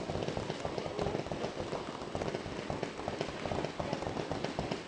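Fireworks crackling: a dense, steady run of fast small pops, as from crackle-effect shells bursting overhead.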